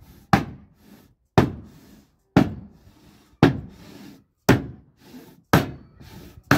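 Soft-faced hammer striking a van floor panel: seven sharp knocks, about one a second, each dying away quickly. The blows press bolt tips poking up beneath the panel into its underside, marking where to drill for the seat mountings.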